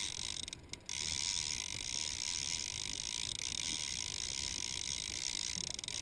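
Conventional trolling reel being cranked to bring in line, its gears and pawl clicking in a steady run, with a short break a little under a second in.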